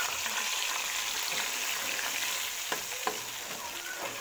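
Wet onion, garlic, ginger and tomato paste sizzling in hot oil in a wok, freshly added and being fried, while a metal spatula stirs it. A few knocks of the spatula against the pan come in the second half.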